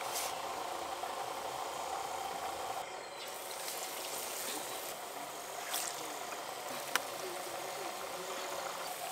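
Hot oil sizzling steadily in a kadai as batter-coated potato chops (aloo chop) deep-fry, with a single sharp click about seven seconds in.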